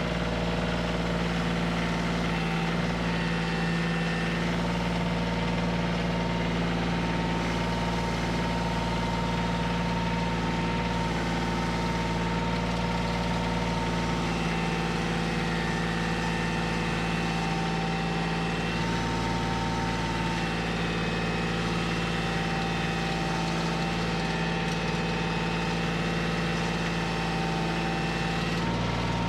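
Kioti CK2610 compact tractor's three-cylinder diesel engine running steadily under the work of lifting a heavy log, its tone shifting slightly about halfway through and again near the end.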